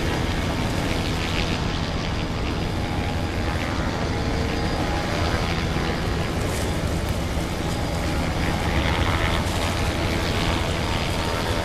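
Boat engines running with a steady low drone, over a constant rush of water and wind.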